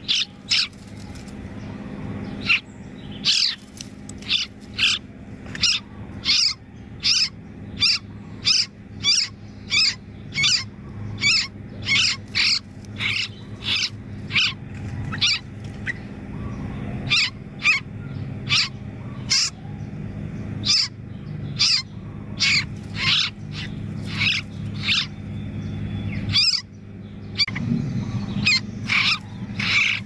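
Bulbul nestlings giving short, sharp, high calls over and over, about one to two a second, with a brief pause near the end; distress calls as a centipede attacks them in the nest. A steady low hum runs underneath.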